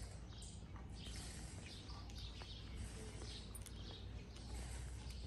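Birds chirping in short calls that fall in pitch, about two a second, over a low steady rumble.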